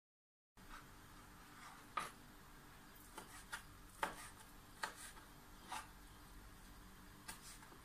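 Kitchen knife cutting dried prunes on a plastic cutting board: a series of faint, irregular taps of the blade against the board.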